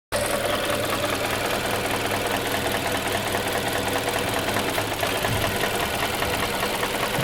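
Mazda 6 GJ's 2.5-litre four-cylinder petrol engine running at a steady speed with a rapid, even knocking. The owner cannot tell what is causing the knock.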